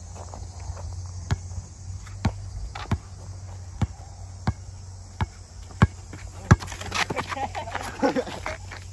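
A basketball being dribbled on an outdoor hard court, one sharp bounce about every two-thirds of a second. Near the end comes a quick jumble of scuffs and knocks.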